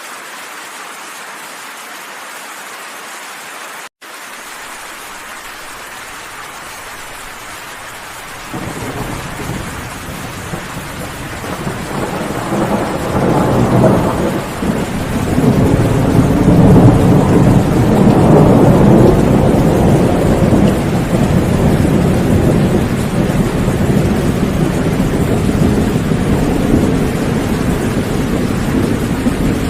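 Steady rain falling, then a long roll of thunder that starts about a third of the way in, builds to its loudest near the middle and keeps rumbling under the rain to the end. The sound cuts out for an instant about four seconds in.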